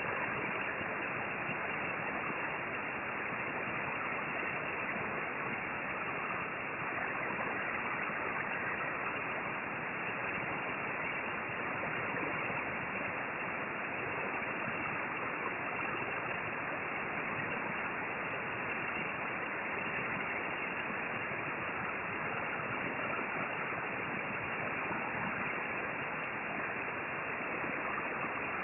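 Steady rushing hiss of a hot-air rework station's air stream blowing.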